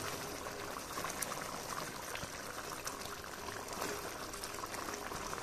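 Thick chicken curry gravy bubbling and simmering in a steel pan as it is stirred with a spoon, a steady soft sputter with small crackles. The gravy is being cooked down to make the chicken dry.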